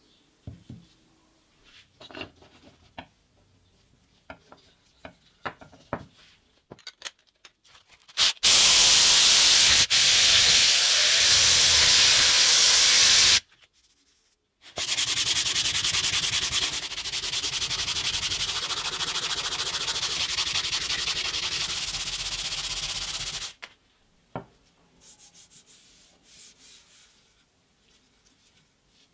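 Wooden knife handle being sanded by hand on a sheet of sandpaper: a steady scratchy hiss in two long stretches, about five seconds and then about nine seconds, with a short break between. Before that there are a few light clicks of handling.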